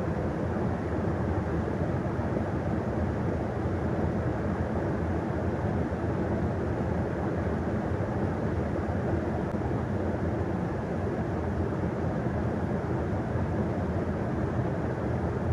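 Steady rushing of flowing river water, an even unbroken noise with no distinct events.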